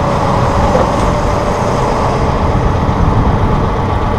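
Massey Ferguson 1742 compact tractor's diesel engine running steadily at idle while the CB75 backhoe's hydraulic cylinders are worked, with a faint steady whine over the engine rumble.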